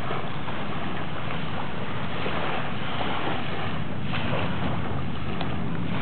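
Steady rushing noise of wind and water, unchanging throughout.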